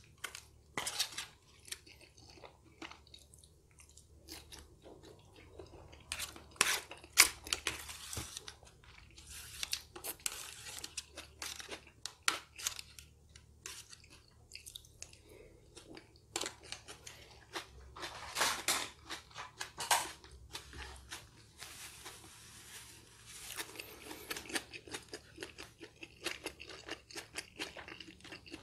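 Close-miked eating sounds: chewing a mouthful of baked pasta, with a metal fork scraping and clicking against a crinkly aluminium foil tray, in irregular bursts.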